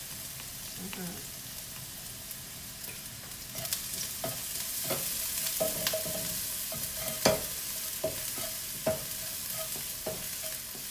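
Chopped shallots and garlic sizzling in hot oil in a frying pan while a slotted spatula stirs them, with frequent scrapes and knocks of the spatula against the pan. The sizzle grows louder a few seconds in.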